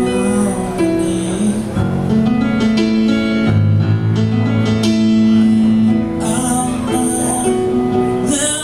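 Music with long, held pitched notes that change every second or so, and a brighter, hissing texture coming in near the end.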